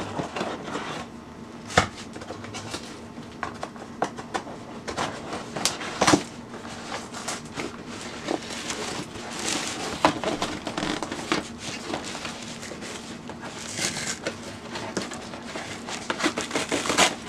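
A taped cardboard shipping box being worked open by hand: scattered knocks and clicks with bursts of scraping and tearing of cardboard and tape, over a steady hum. The box is tight and slow to open.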